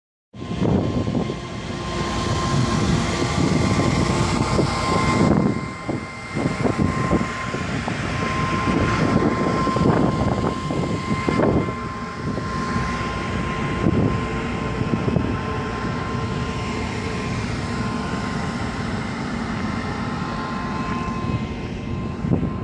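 Wind buffeting the microphone on a ship's open deck, over a steady rumble and a constant high whine from the ship's machinery.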